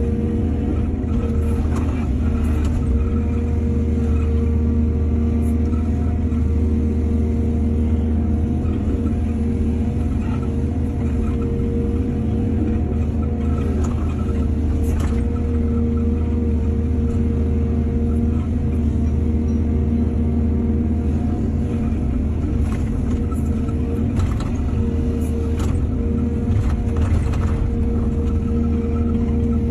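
Excavator's heavy diesel engine running steadily under load, with a few short sharp clinks and knocks scattered through, typical of a bucket working soil.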